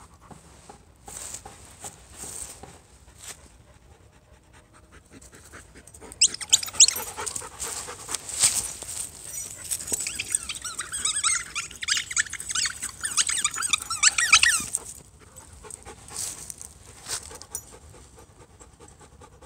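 A beagle and a Labrador at play, panting, with a run of high-pitched squeals and whines from about six seconds in until about fifteen seconds.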